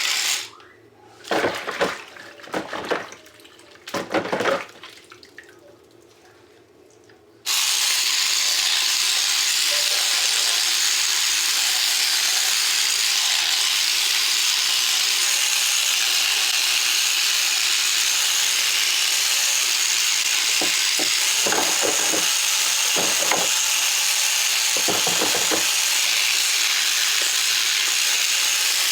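Kitchen tap running water into a sink, switched on suddenly about seven seconds in and flowing steadily, with a few knocks of the dishwasher filter being handled under it. Before the tap comes on there are several short clattering sounds of handling at the sink.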